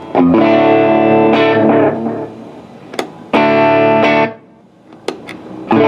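Electric guitar chords played through a Memphis Echo ME-8 tape echo set for a short slapback-style delay. Three chords are struck: one rings out early, one stops short around the middle, and a third comes near the end.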